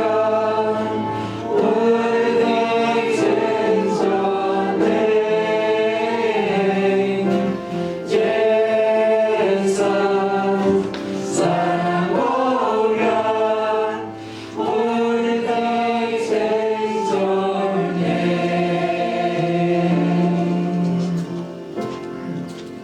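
Worship song sung by a group of voices, in phrases with short breaths between them, getting quieter near the end.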